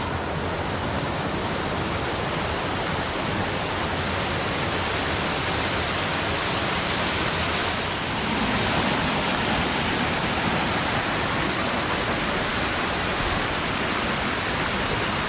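Rocky creek running high and fast: a steady, even rush of water over rocks.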